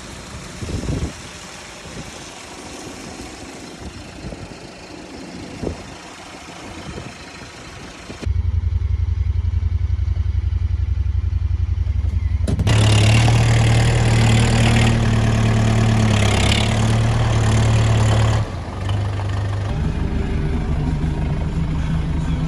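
Low outdoor rumble with a few knocks, then about eight seconds in a motor engine starts running steadily. It is louder between about twelve and eighteen seconds, then runs on at a lower pitch.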